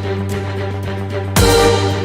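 Background music: sustained low notes held steady, with a sudden loud accent about one and a half seconds in.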